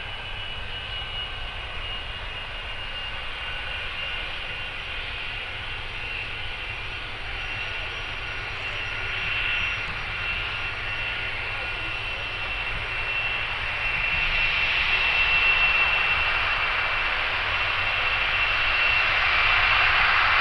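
Boeing 747-400F's four turbofan engines running at low taxi power: a steady rushing whine with a couple of held high tones, growing louder over the second half.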